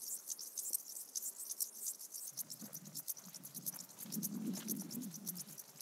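Meadow insects, crickets and grasshoppers, chirping: a fast, dense, high-pitched clicking that keeps up without a break.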